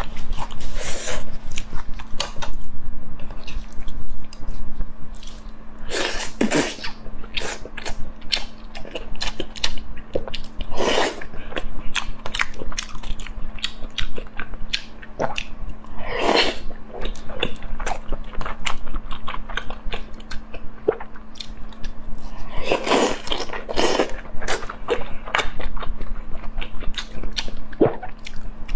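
A person chewing food close to a clip-on microphone, with many small wet mouth clicks and a few louder bites about every five seconds, over a faint steady hum.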